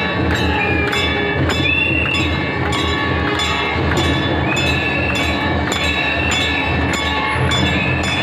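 Hanging brass temple bells rung over and over, struck about twice a second, their tones ringing on and overlapping, over the noise of a dense crowd.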